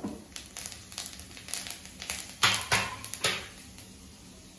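Mustard seeds and urad dal spluttering in hot oil in a kadai during tempering: scattered sharp pops, the loudest cluster about halfway through, dying down near the end.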